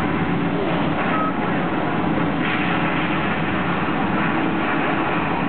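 Steady rushing noise from the Mirage's artificial volcano, its waterfall pouring and its gas flames burning, holding an even level throughout.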